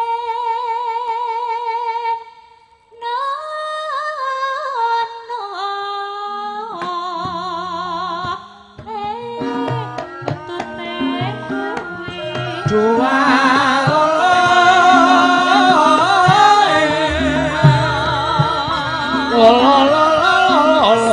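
Javanese gamelan music with a sinden singing. For the first few seconds she sings alone with a wide vibrato. About seven seconds in, the gamelan ensemble joins with drumming, and the music becomes fuller and louder from about thirteen seconds on.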